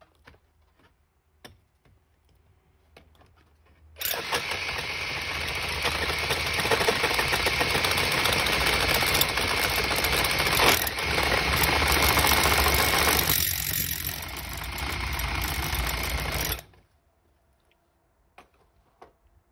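Power drill with a masonry bit boring into red brick. After a few faint clicks, the drill starts about four seconds in, runs loud and steady for about twelve seconds with a brief dip near the end, then stops abruptly.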